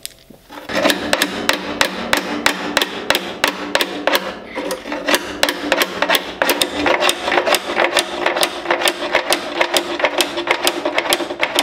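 Hand hammer striking locking pliers clamped onto the drive shaft of a Welger SM4 disc mower's cutter bar, driving the shaft out. Rapid, even blows, about three to four a second, start just under a second in, with a steady ringing tone under them.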